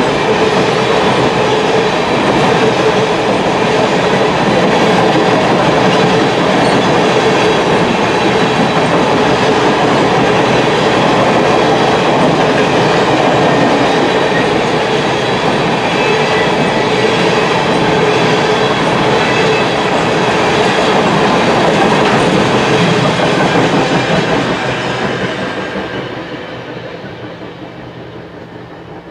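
Freight train of railroad tank cars rolling past at speed: steady rumble and clatter of wheels on the rails, with a faint steady whine in it. It fades away from about 24 seconds in as the last car goes by.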